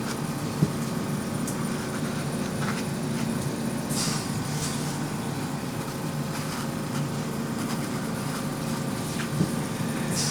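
Steady low hum of background room noise, with a few brief scratchy swishes of a paintbrush working acrylic paint on canvas and two sharp clicks, one near the start and one near the end.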